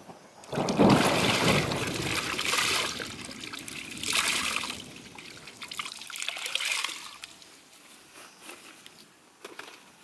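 Water pouring and splashing into a plastic basin as wet laundry is wrung out by hand. It comes in three bursts: a long one starting about half a second in, then shorter ones around four and six seconds, before it dies down to small drips and cloth handling.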